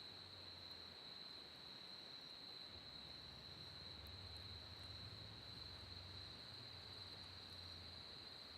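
Faint, steady chirring of night insects, a continuous high even drone with no pauses.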